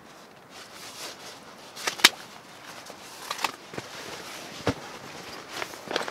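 Foam sleeping mat and its strap being handled: a sharp snap about two seconds in, then several lighter clicks and knocks over a soft rustling as the mat is unstrapped and set down.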